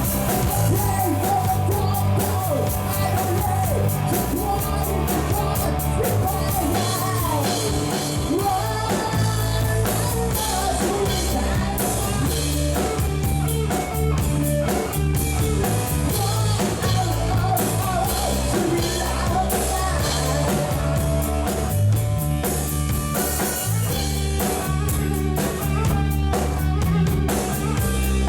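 Rock music with singing, electric guitar and drum kit.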